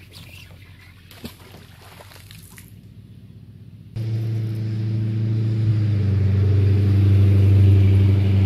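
A thrown fishing magnet lands in the water with a short splash about a second in. From about four seconds an engine comes in suddenly and runs with a loud, steady low hum.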